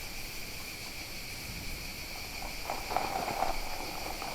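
Steady high-pitched insect chirring in the field, with faint rustling of someone moving through vegetation about two and a half to three and a half seconds in.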